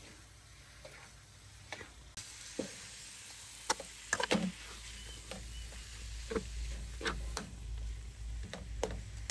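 Metal spatula scraping and knocking against a steel wok as raw beef with lemongrass and spice paste is stir-fried, the meat sizzling as it gives up its juices. There are about ten separate scrapes, and the sizzle grows louder about two seconds in.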